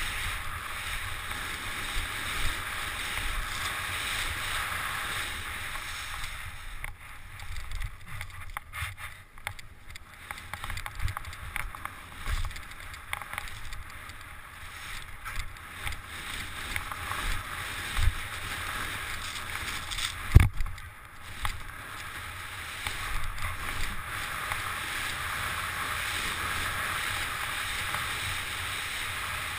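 Skis running fast through powder snow with a steady rushing hiss and wind on the microphone. In the middle the hiss drops away and gives way to a run of knocks and thumps from the skis over bumpy snow, the sharpest about two-thirds of the way through.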